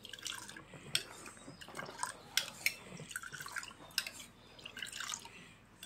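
A spoon stirring and lifting a thick, wet white food mixture in a small metal bowl: irregular wet drips and light clicks of the spoon against the bowl.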